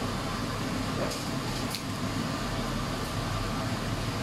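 A steady background machine hum, even and unchanging, with two faint clicks about a second and a half in.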